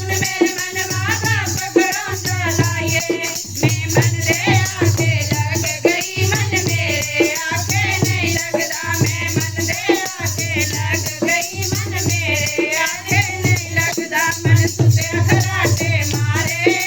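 Devotional kirtan music: a bending melody over a steady low beat, with constant shaker-like rattling percussion.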